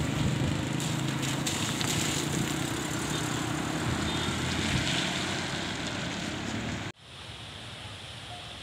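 Road traffic noise along a rain-wet road: a steady rumble of passing vehicles with a hiss over it. It cuts off abruptly about seven seconds in and gives way to a quieter steady hiss.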